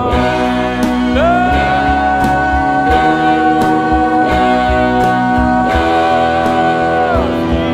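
A song played by a band, with one long held note that slides up into pitch about a second in, holds for about six seconds and falls away near the end.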